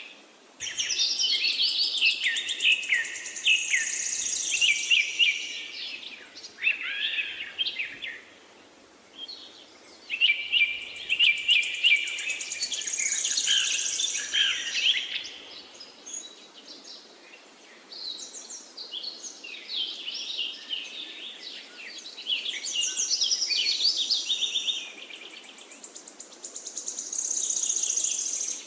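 Several birds chirping and singing together in dense bursts a few seconds long, with short lulls between. A high, rapid trill rises above the chorus three times, near the start, in the middle and near the end, over a faint steady hiss.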